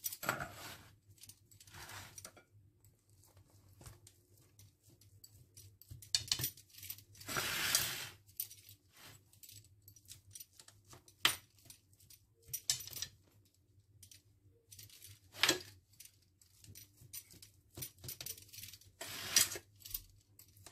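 Pizza cutter wheel rolling and scraping across a metal pizza pan as it cuts through a thick savoury pancake: a series of scrapes and light metallic clinks, the longest scrape about a third of the way through.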